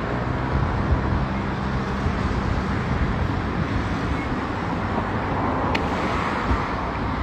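Steady road traffic noise, a continuous rush of passing vehicles, with a sharp click near the end.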